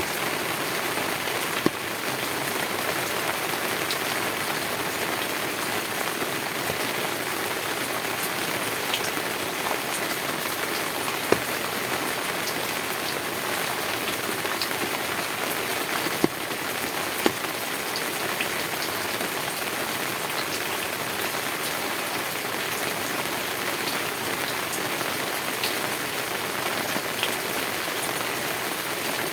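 Heavy rain falling steadily on a tin roof, with a few louder single ticks of drops now and then.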